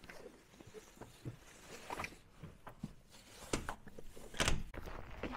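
Handling sounds of someone getting ready to go out in a winter parka: rustling of the coat and a zipper, with soft footsteps and scattered light clicks. A few louder knocks come about three and a half and four and a half seconds in.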